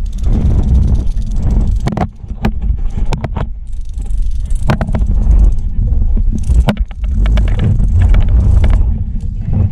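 Wind buffeting an action camera's microphone on an exposed cliff-side suspension bridge: a loud, uneven low rumble, broken by many sharp clicks and knocks.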